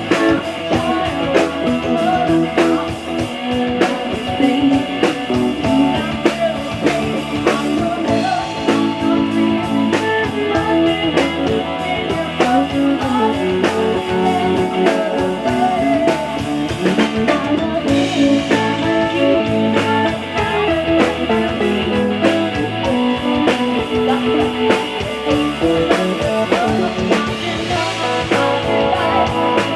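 Blues-rock music with guitar and a drum kit, with some singing.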